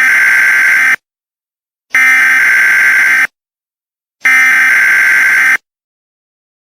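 Emergency Alert System digital data bursts (SAME tones): three loud, harsh buzzing bursts about 1.3 s long, about a second apart with silence between, then a much shorter burst beginning right at the end. These modem-like bursts carry the alert's coded data for receiving equipment.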